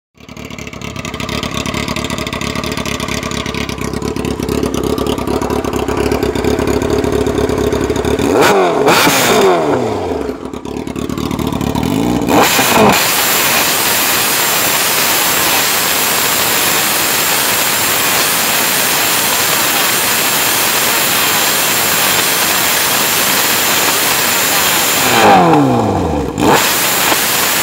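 Yamaha R6 inline-four engine idling steadily, then revved hard about a third of the way in, its pitch falling away as the revs drop. From about the middle a loud, even rushing hiss covers the engine, and a second rev falls away near the end.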